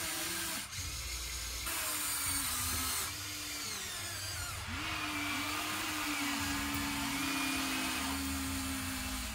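Small electric motors of a Huina radio-controlled excavator whining as it swings and works its arm and bucket. The whine shifts pitch in steps and short glides as each motion starts and stops.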